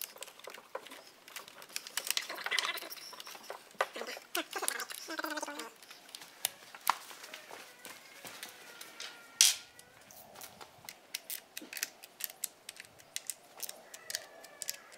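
Irregular clicks and light knocks of hands and a small hand tool working on the plastic ignition coil packs atop a BMW M52 straight-six's cylinder head. The loudest knock comes about nine and a half seconds in, followed by a quicker run of small clicks.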